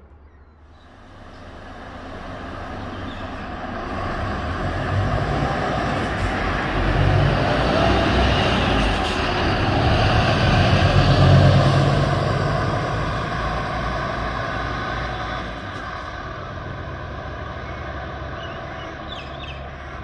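Diesel engine of a V/Line road coach moving off and driving away. It grows louder over several seconds, is loudest about halfway through, then fades as the coach recedes down the road.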